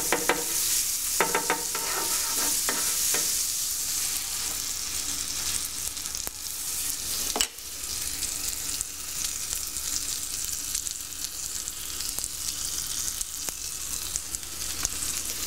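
Butter sizzling and frying on a hot griddle, with a few sharp clicks and scrapes of a metal spatula spreading it in the first few seconds, then a sandwich set down to fry in the butter.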